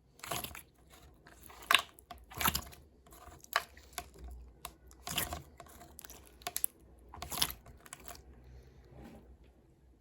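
Irregular crisp taps, clicks and crinkles from something being handled close up, a few sharper than the rest, with no steady rhythm.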